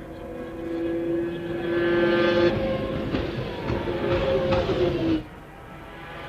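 Formula One car engines running at steady speed, several overlapping, growing louder, then cutting off abruptly about five seconds in.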